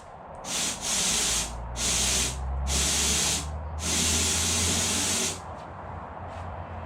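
Aerosol can of brake cleaner spraying in five short hissing bursts, the last one the longest, forced into an old fuel line in the Beetle's chassis tunnel.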